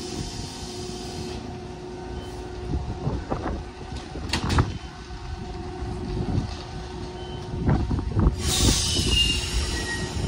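Nishitetsu 600 series electric train standing at a platform, its equipment humming over a low rumble, with a few sharp knocks partway through. A loud hiss starts about eight seconds in and runs on.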